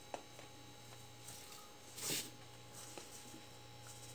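Granulated sugar poured from a plastic cup into a plastic blender jar: one short hissing pour about two seconds in, with a few faint clicks of handling over a low steady hum.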